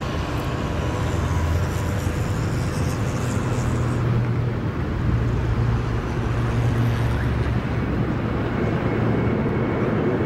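McDonnell Douglas MD-11 jet airliner engines heard outdoors as a steady low rumble with a faint whine above it.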